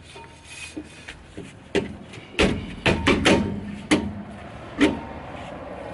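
Rear brake drum of a Toyota Yaris being slid over the drum-brake shoes and wheel studs, giving a series of sharp metallic knocks and clunks, about six over a few seconds, as it is test-fitted to check that the freshly adjusted shoes clear the drum.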